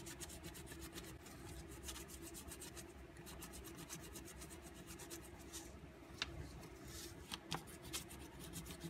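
Oil pastel scribbling on creased, folded drawing paper: faint, quick back-and-forth rubbing strokes, with a couple of sharper ticks in the second half.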